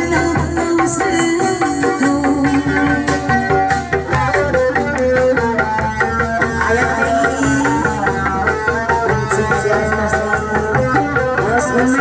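Sundanese traditional ensemble music: a busy, steady drum rhythm under pitched melodic instruments.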